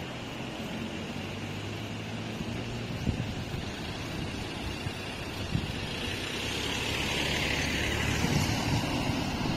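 Road traffic noise: a steady low vehicle hum with tyre hiss that swells about seven seconds in as a vehicle goes by.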